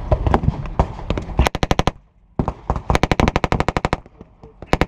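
Belt-fed machine gun firing blanks in very rapid bursts: a few scattered shots at first, a short burst about a second and a half in, a longer burst of about a second and a half after a brief gap, and another burst starting near the end.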